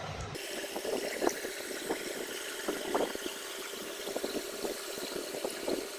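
Close-up crunching and chewing of crisp-coated fried momos, in irregular crackling bites over a steady hiss.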